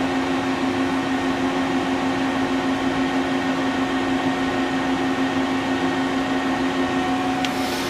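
Steady machinery hum: two low, unchanging tones over an even hiss, with a brief click near the end.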